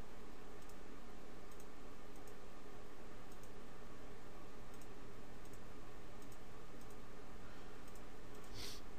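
Computer mouse clicking: faint single clicks scattered about once a second over a steady background hiss and hum.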